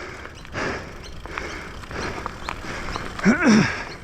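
A man breathing hard and gasping for air, with a loud voiced groan near the end and a few light clicks. He is out of breath from a steep climb, his lung capacity cut by post-COVID fatigue.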